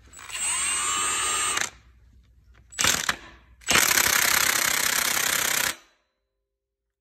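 Milwaukee cordless high-torque impact wrench in nut-buster mode, run on the crankshaft bolt of an engine's harmonic balancer. It goes in three bursts: about a second and a half with a whine that rises as the motor spins up, a brief blip, then a louder two-second burst that stops about six seconds in.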